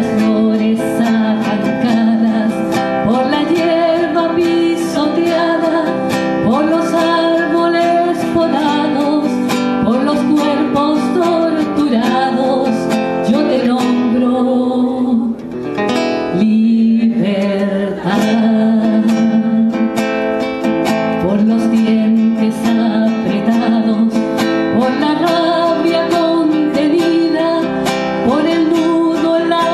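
A woman singing a song into a microphone, accompanied by a strummed acoustic guitar. There is a short break in the singing about halfway through, while the guitar plays on.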